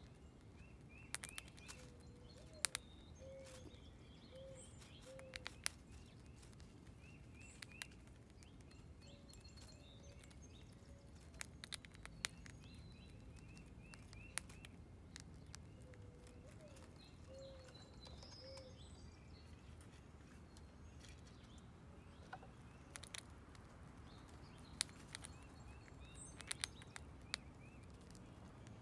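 Gray squirrel crunching dried corn kernels: sharp, irregular clicks now and then over a quiet outdoor background. Birds chirp twice in quick runs of short high notes, near the start and again around the middle, with a few lower calls.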